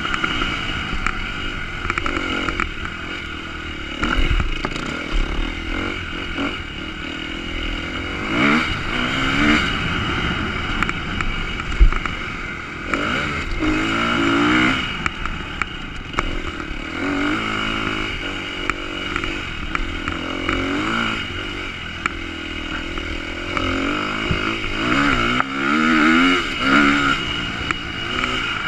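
Motocross bike engine, heard close up from the bike as it is ridden hard, revving up again and again as the rider accelerates out of turns and up hills, with a sharp knock about twelve seconds in.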